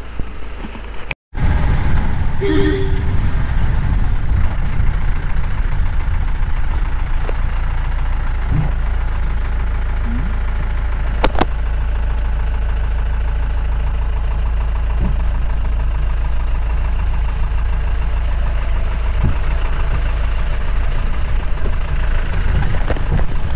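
Off-road safari jeep's engine running, a steady low drone with no speech, after a brief silent break about a second in. A single sharp click comes near the middle.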